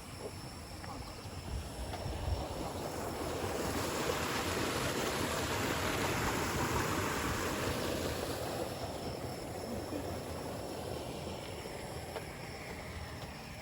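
Steady rushing of a river running high after heavy rain, with a rushing swell that builds for a few seconds in the middle and then fades.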